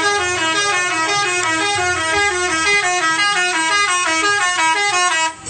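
Multi-tone telolet horn of a Pandawa 87 bus playing a fast tune of quickly changing notes, cutting off abruptly near the end.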